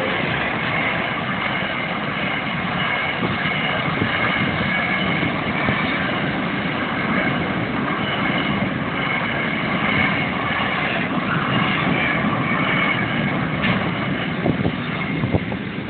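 Freight train wagons rolling past at speed and drawing away, a steady loud running noise with several steady high-pitched tones over it that fade out near the end. A few sharp knocks come near the end.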